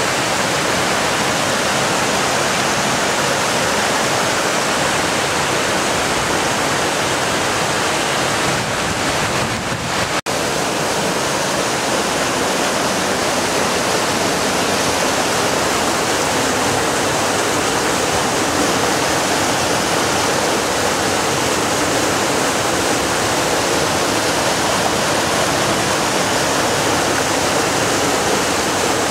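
Whitewater of the Roaring River rushing and cascading over boulders at the Alluvial Fan waterfall: a loud, steady rush, broken once by a split-second gap about ten seconds in.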